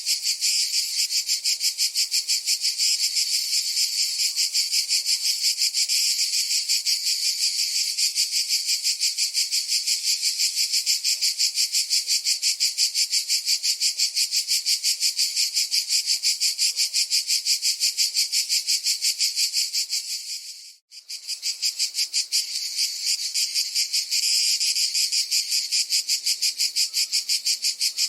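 Cicada song: a loud, high-pitched buzz pulsing rapidly and evenly, which cuts out for a moment about three-quarters of the way through, then starts again.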